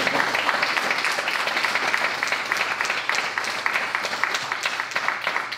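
A small audience applauding: many hands clapping steadily, easing off near the end.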